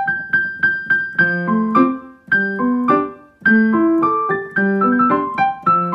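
Piano music: a quick melody of struck notes over chords, with notes following each other every fraction of a second.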